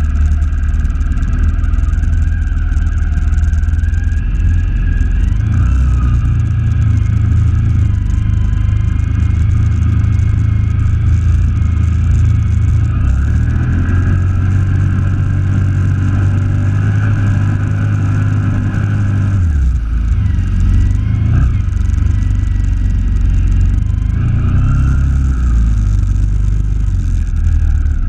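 ATV engine running under throttle while the quad ploughs through deep floodwater, its pitch rising and falling with the throttle and easing off briefly about two-thirds of the way through, with water churning and splashing against the machine.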